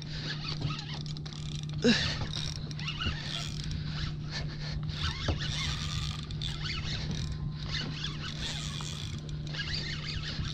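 Spinning reel and line working against a hooked striped bass: scratchy, creaking mechanical noise over a steady low hum.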